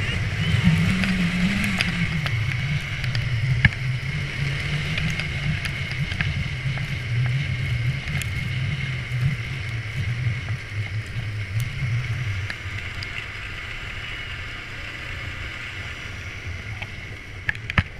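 Snowmobile engine running while riding, with wind rushing over the camera microphone. The engine's low drone eases off about twelve seconds in.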